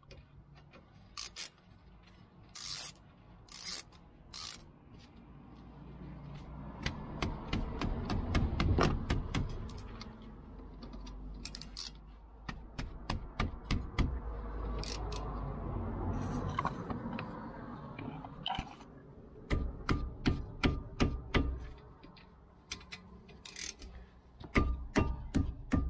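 Irregular metal clinks, knocks and scraping as a car's front brake caliper is worked off the disc and its brake pads are handled, with gloved hands rubbing on the parts. A few sharp scraping bursts in the first seconds, and a quick run of clicks and knocks near the end.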